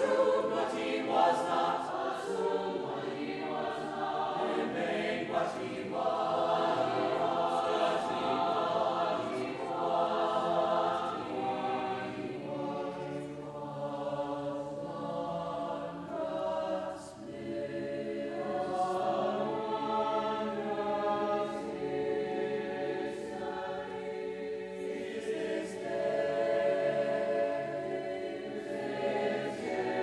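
Mixed choir of men's and women's voices singing in parts, with long held chords and a short lull about seventeen seconds in.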